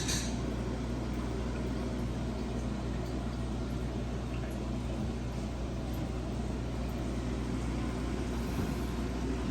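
Steady low hum of a running motor, even and unchanging throughout.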